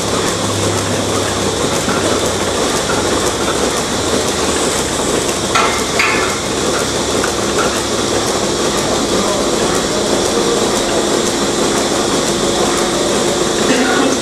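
Milking parlour machinery running: a loud, steady hiss and hum from the milking units, with a couple of short knocks about five to six seconds in.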